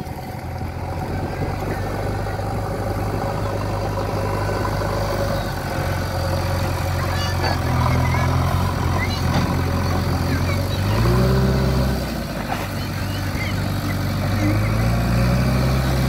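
JCB 3DX backhoe loader's diesel engine running steadily while the machine wades through shallow river water, revving up about eleven seconds in and again near the end as the front bucket is worked.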